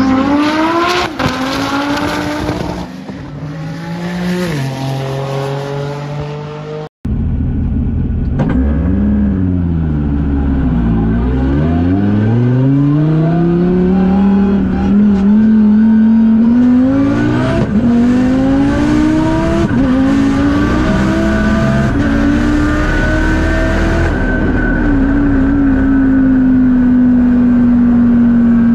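Twin-turbo 2014 Dodge Viper's V10 engine accelerating hard. It is first heard from trackside as it launches and pulls through the gears. After an abrupt cut about seven seconds in, it is heard from inside the cockpit, its note climbing through several upshifts and then falling steadily as the car slows.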